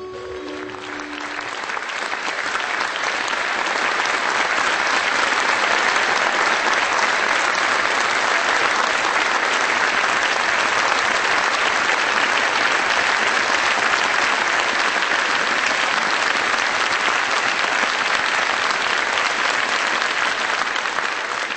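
Theatre audience applauding, swelling over the first few seconds and then holding steady and loud as the cast bows. The last notes of the music die away at the start.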